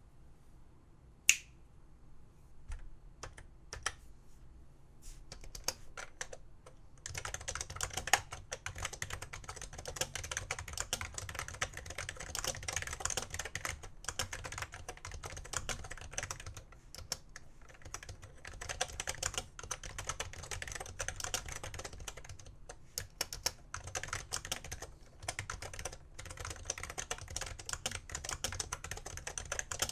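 BTC 5139 keyboard with conductive rubber dome switches being typed on: a few separate keystrokes and one sharp, loud click about a second in, then steady fast typing from about seven seconds in.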